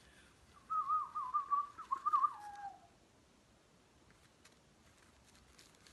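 A person whistling a wavering, trilling call, imitating baby birds chirping excitedly. It lasts about two seconds and ends in a falling glide.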